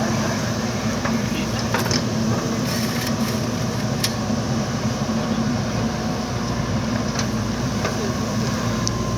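JCB backhoe loader's diesel engine running steadily under work, with a few sharp knocks about two, four and seven seconds in.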